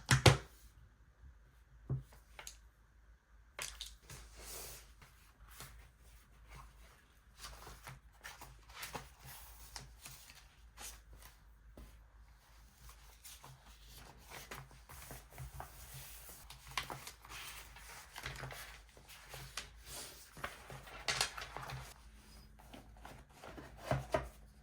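Paper and stationery being handled on a desk: scattered taps and small clicks with short bursts of paper rustling. The loudest click comes right at the start.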